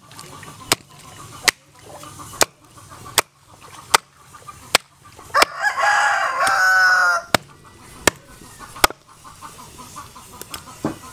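A hatchet chops through meat and bone into a wooden chopping block, with sharp knocks about every three-quarters of a second. About halfway through, a rooster crows for roughly two seconds, the loudest sound. Faint chicken clucking runs underneath.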